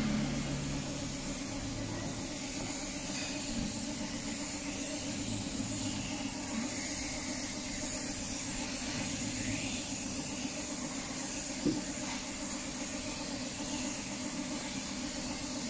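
Gravity-feed air spray gun hissing steadily as it sprays a clear finish onto a wooden chair, over a steady low hum, with a single click about three quarters of the way through.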